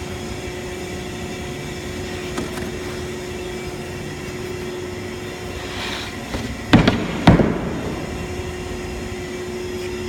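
Multi-spindle CNC wood router running with a steady hum. Two loud knocks about half a second apart come a little past halfway, just after a short hiss.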